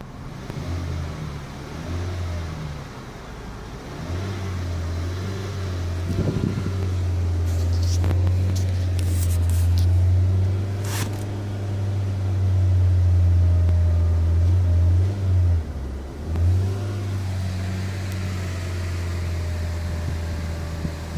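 A car driving with a loud, steady low drone, the grinding noise it makes when accelerating. A few sharp clicks come about a third of the way in.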